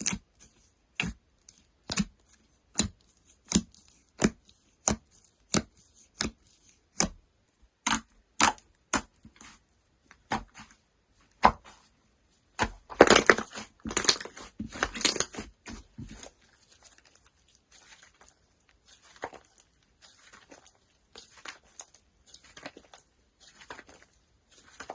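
Slime being worked by hand, with crisp clicking pops at a regular pace of about one and a half a second. These give way to a few seconds of dense crackling, then faint scattered crackles.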